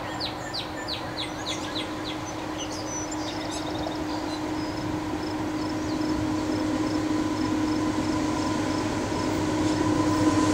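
Canadian Pacific diesel locomotives approaching, a steady engine hum growing slowly louder. A bird sings a quick run of descending chirps over the first few seconds.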